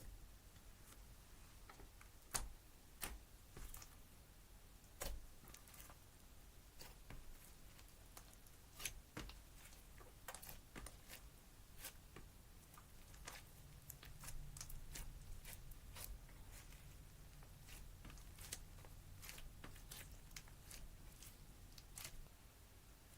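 Slime being squeezed and stretched by hand, giving faint, irregular little clicks and pops, a few of them sharper than the rest.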